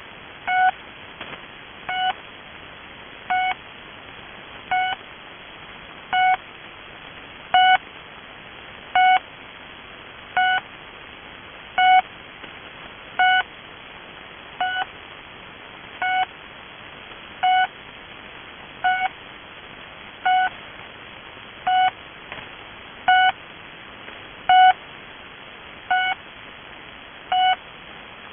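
The Pip, a Russian military shortwave channel marker on 3756 kHz, received in double sideband: short beeps, about one every 1.4 seconds, over steady receiver hiss.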